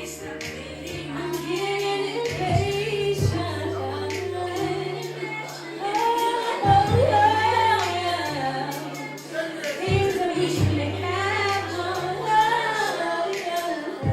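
A singer performing a song over a backing track, with held bass notes that change every couple of seconds and occasional low drum thumps.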